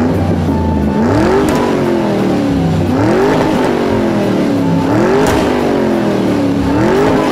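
Electronic engine-revving sound effect from a ride-on toy motorcycle's speaker. A synthetic revving whine rises and falls about every two seconds, four times.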